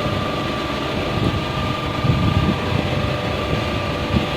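Steady machine hum with a constant thin whine, over an uneven low rumble.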